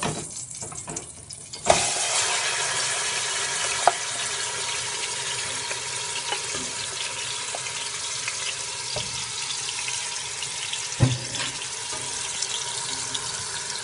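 Marinated mutton dropped into hot oil in a pressure cooker, starting to sizzle loudly about two seconds in and sizzling steadily after. There are a few scrapes and taps as it is pushed out of its container at first, and a couple of knocks of a wooden spoon against the pot as it is stirred.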